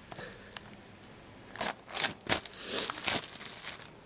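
Plastic shrink wrap crinkling and tearing as it is pulled off a Blu-ray case, in a few short bursts starting about a second and a half in.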